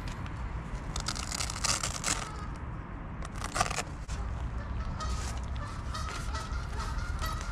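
Rustling and crackling of a fabric bicycle carrier bag and the gear inside it being handled and unpacked, in irregular bursts, over a steady low wind rumble on the microphone.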